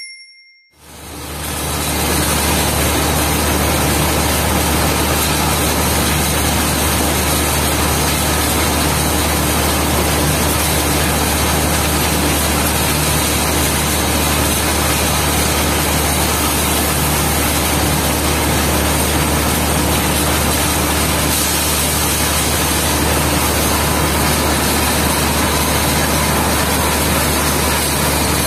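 Asphalt mixing plant running: a loud, steady machinery drone with a low hum and a constant hiss. It fades in over the first two seconds.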